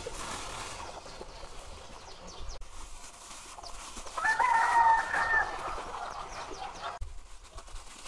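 A rooster crowing once, a single held crow lasting about a second and a half, a little past the middle.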